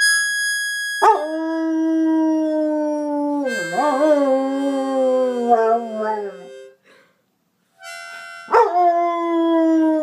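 A harmonica plays a short held note, then a dog howls along to it for about five seconds, the howl sliding slowly down in pitch. After a second's pause the harmonica sounds again and the dog starts a second howl near the end.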